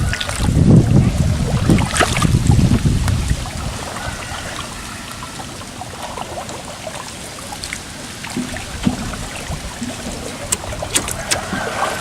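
Water sloshing and trickling around a small boat, with a heavy rumble for the first three seconds or so, then a quieter stretch with scattered light clicks and knocks, a few more near the end.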